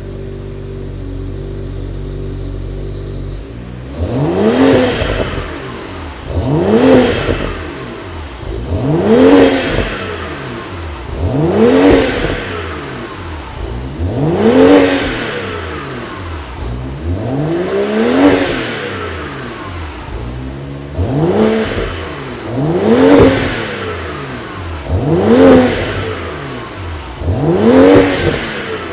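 BMW 335i's N55 turbocharged straight-six, breathing through a catless 4-inch downpipe and an Akrapovic Evolution stainless steel exhaust, idling and then revved in repeated quick blips. Each blip rises and falls back to idle, about a dozen of them roughly every two to two and a half seconds after the first few seconds of idle.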